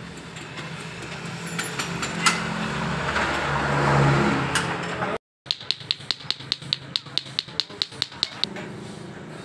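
Hands handling parts on a motorcycle, with a rising rustle and clatter. After a brief cut, a compressed-air blow gun gives a quick run of short sharp puffs, about five a second, for some three seconds.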